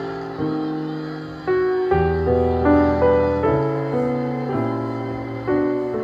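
Slow piano music: notes and chords struck every half second to a second and left to fade.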